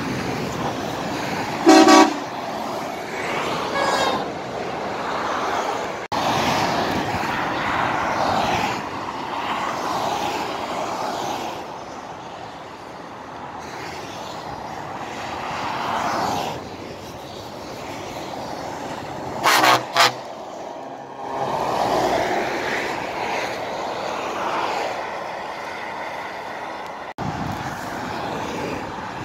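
Motorway traffic passing below, tyre and engine noise swelling and fading as vehicles go by. A truck's horn sounds once briefly about two seconds in, then twice in quick succession about twenty seconds in.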